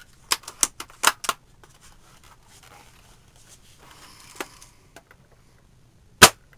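Well L96 spring-powered bolt-action airsoft sniper rifle: its bolt is worked with a quick series of sharp clacks in the first second and a half, then a single loud shot fires near the end.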